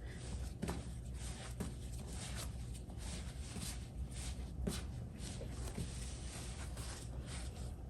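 Hands kneading esfiha dough: soft, irregular rubbing and slapping strokes, about one and a half a second.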